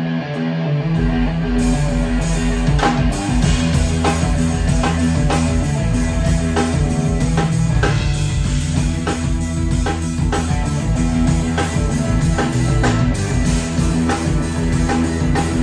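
Guitar-led rock theme song with a steady beat; the low end and fuller band come in about a second in.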